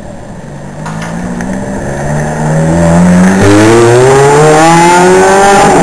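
Ferrari F430's V8 accelerating hard as the car pulls away. The revs climb, drop suddenly at an upshift about three and a half seconds in, then climb again, growing loud as the car passes.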